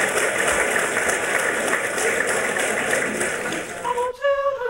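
Large audience applauding. About four seconds in, the applause cuts off and a sung note begins.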